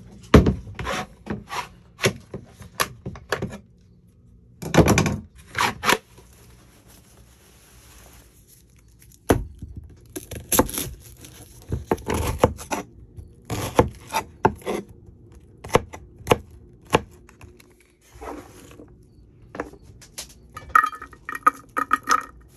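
A kitchen knife chopping an onion on a plastic cutting board: irregular runs of sharp taps, pausing for a few seconds partway through. Knocks from cooking gear being handled come in among them.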